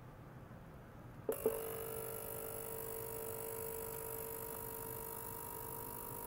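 Small ultrasonic cleaner bath starting up: two sharp clicks about a second in, then a steady mid-pitched tone with a high hiss that runs on.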